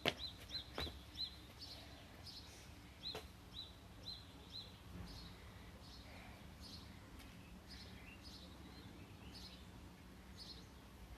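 Faint bird chirping: a quick run of short repeated chirps, two or three a second, over the first few seconds, then scattered higher chirps. A few sharp knocks come near the start.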